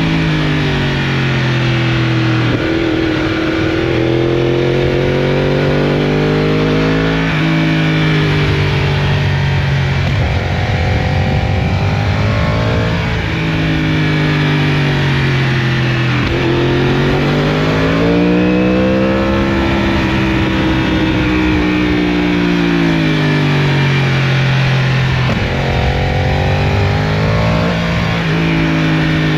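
Yamaha R1's crossplane inline-four through an Akrapovic exhaust, heard onboard while riding: the engine note climbs and falls with the throttle, with several abrupt steps in pitch at gear changes.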